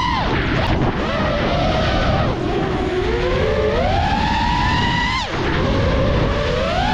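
FPV racing quadcopter's motors whining, the pitch rising and falling with the throttle, over rushing wind noise. The pitch drops sharply about five seconds in, then climbs again.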